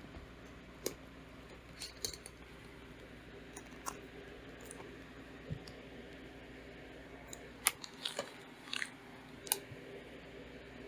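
Scattered small clicks and taps, about ten in all with several close together near the end, over a steady low hiss.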